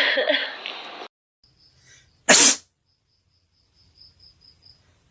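A single sharp, loud sneeze from a girl, about halfway through, after a voice that trails off about a second in.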